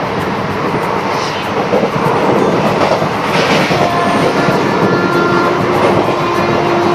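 Passenger train running on the rails: a steady rumble and rattle of the moving coaches, with a few faint steady tones coming and going in the second half.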